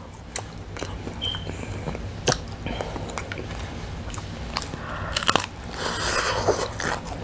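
Close-up eating sounds: chewing with scattered crisp clicks, then, about five and a half seconds in, a bite into a piece of air-fried Popeyes fried chicken, its crispy breading crunching loudly.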